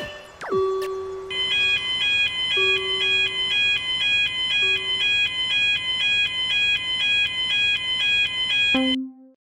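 Japanese railroad crossing warning bell as a cartoon sound effect: a rapid, evenly repeating two-tone clang. It starts after a couple of falling whistle-like glides and cuts off suddenly near the end.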